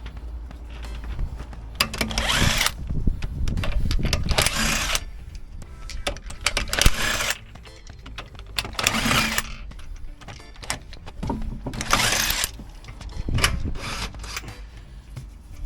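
Electric impact wrench with a 19 mm socket undoing wheel nuts, in about five or six short rattling bursts with pauses between.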